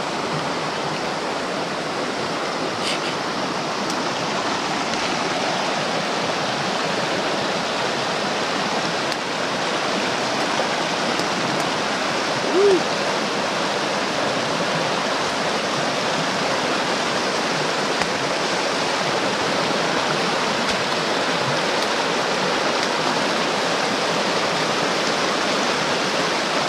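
Small mountain creek rushing over rocks in shallow riffles: a steady rush of water.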